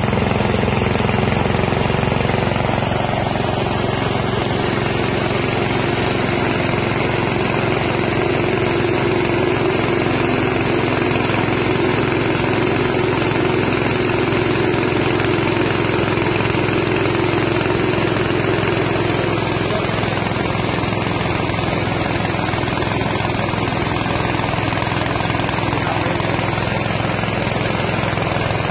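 Small 6.5 hp petrol engine running steadily, driving a rice milling machine, with the mill's mechanism turning along with it.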